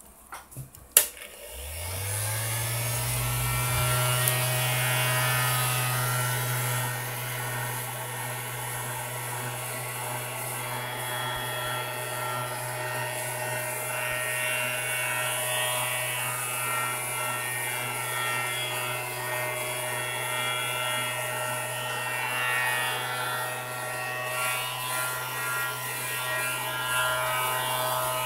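A heat gun is switched on with a click about a second in. Its fan motor spins up with a rising hum, then runs steadily on its lowest setting, blowing hot air with a steady rush onto the phone's screen assembly to soften the adhesive.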